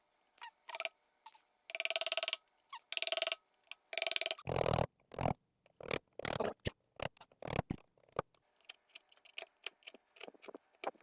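Hand-tool work on a wooden dovetail joint: two squeaky scraping strokes early on, then a string of short, irregular taps and knocks of wood and steel.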